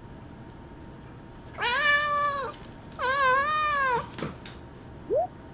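A cat meowing: two long, drawn-out meows about a second each, then a short rising chirp-like call near the end.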